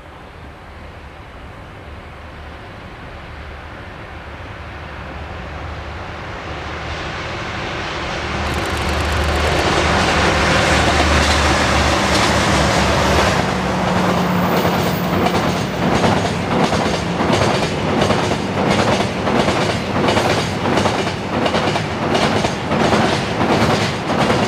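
Freight train hauled by two DD51 diesel-hydraulic locomotives approaching and passing. Their engines swell to a loud, deep drone about ten seconds in. A long string of tank wagons then rolls by with a steady, rhythmic clickety-clack of wheels over the rail joints.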